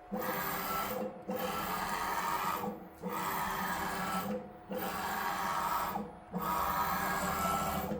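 Stepper motor driving the Z axis of a home-built CNC router, running with a steady whine in five moves of about a second and a half each, with short pauses between them.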